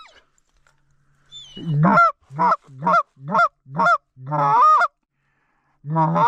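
Canada-style goose calling, loud and close: a quick series of about six honks, each breaking from a low moan up to a high note, then after a short pause another burst near the end, called to bring incoming geese in.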